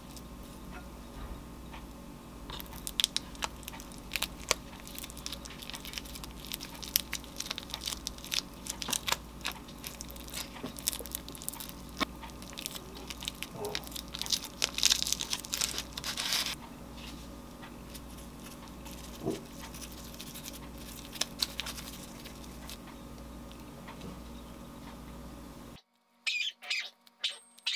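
Dry sheets of roasted laver (gim) crackling and crinkling under the fingers as mini gimbap rolls are filled and rolled by hand, with many small scattered clicks over a steady low hum. Near the end the hum drops out and a few separate knocks follow as the rolls go into a plastic container.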